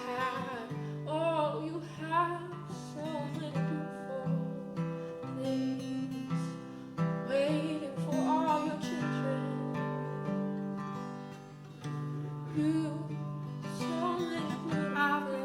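Acoustic guitar playing between verses, with brief wordless singing lines near the start, about eight seconds in, and near the end.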